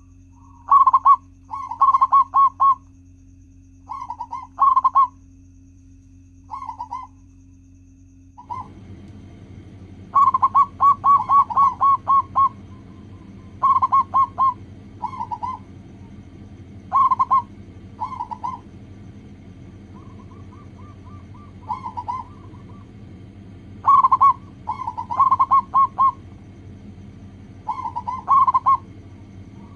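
Zebra dove (perkutut) cooing: short phrases of rapid staccato coo notes, repeated every second or two, over a steady low hum that grows louder about eight seconds in.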